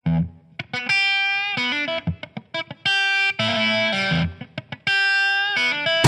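Background music: a solo guitar intro picking a short phrase of single ringing notes that repeats about every two seconds, before the full band comes in.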